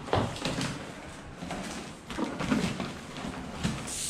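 Irregular handling noises: scattered knocks, scrapes and rustles from an unboxed mountain-bike frame and its packaging being moved about.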